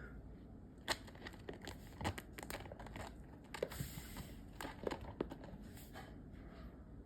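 Sugar glider chewing a treat: irregular small crunching and crinkling clicks, the sharpest about a second in and again around two, three and a half and five seconds in.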